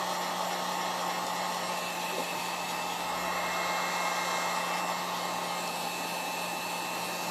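Heat gun running steadily on its low setting: an even rush of blown air with a low motor hum and a faint high whine.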